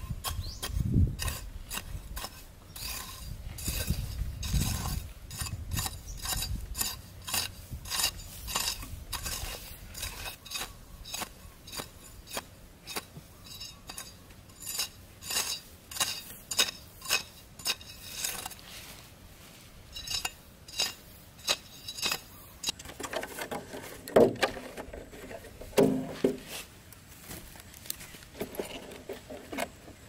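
Machete blade scraping and chopping at hard, dry soil in quick repeated strokes, about two a second, with hands brushing the dirt; two louder knocks come about three-quarters through.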